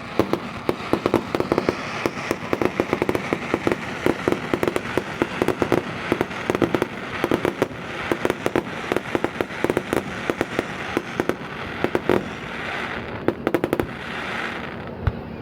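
Fireworks bursting overhead in a dense, rapid stream of sharp crackling pops, with steady crackle between the louder cracks.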